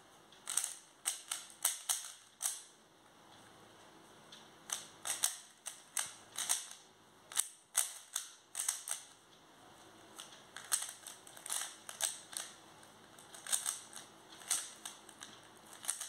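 A plastic 3x3 Rubik's cube clacking as its layers are turned during a solve: quick runs of clicks broken by short pauses.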